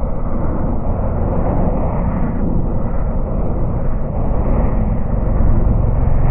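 Steady white noise for sleep, weighted toward the low end with no high treble, like a constant rumbling rush. It grows slightly louder near the end.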